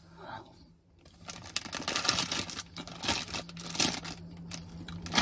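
Shiny foil pastry wrapper crinkling and rustling as it is handled, many small crackles starting about a second in, over a faint steady hum.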